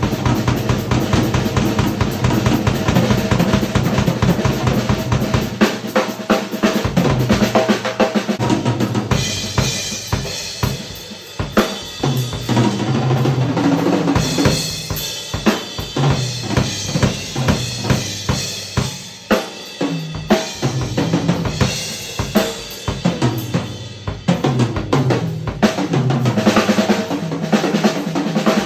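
Yamaha Recording Custom drum kit played freely, bass drum and snare to the fore. The playing is dense and continuous at first, then breaks into separate, spaced-out strokes from about ten seconds in.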